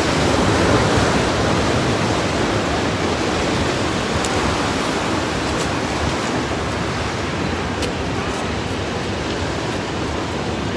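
Ocean surf breaking on a rocky shore below, a steady unbroken wash of noise.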